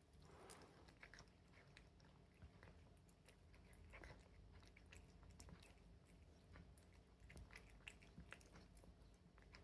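A cat chewing food, faint irregular crunching clicks several times a second.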